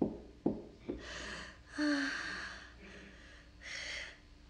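A woman gasping in acted fright: several sharp, panicked breaths into a close microphone, one with a brief voiced catch. A few sharp knocks come in the first second.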